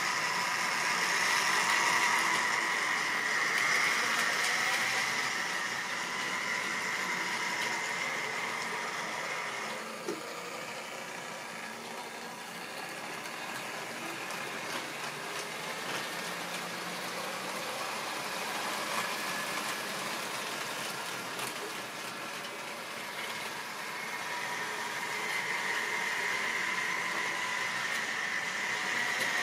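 Model railway trains running on track: a steady electric motor whine with wheel rumble, loudest at the start and again near the end as trains pass close by. There is a single click about ten seconds in.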